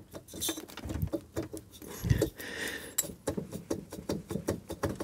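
Suzuki K10P engine's finned cylinder barrel being wiggled and levered loose on its studs: a run of light, irregular metal clicks and rattles with a couple of duller knocks.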